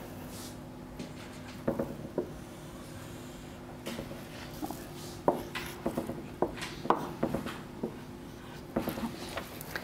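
Marker pen drawing on a whiteboard: short squeaks and taps as lines and points are drawn, more often in the second half, over a steady low hum.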